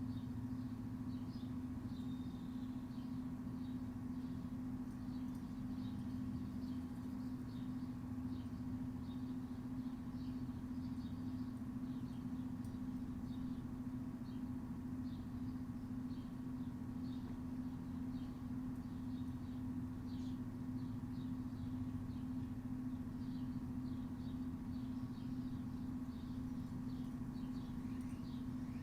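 Steady low hum with one strong held tone, under frequent short high bird chirps.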